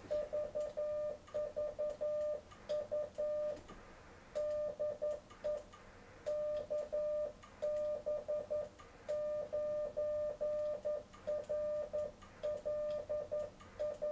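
Yaesu FT-817 transceiver's CW sidetone: a steady beep of about 600 Hz keyed on and off in Morse code dots and dashes as the rig transmits.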